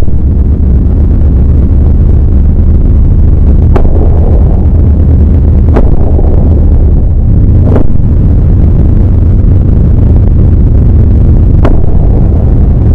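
Very loud, heavily distorted deep rumble, steady throughout, with four sharp clicks spread across it.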